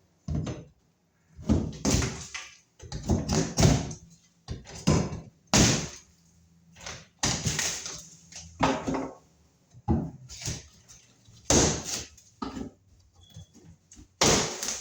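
Hammer breaking out drywall (sheetrock) around a wall outlet box: a dozen or so irregular blows, some in quick clusters.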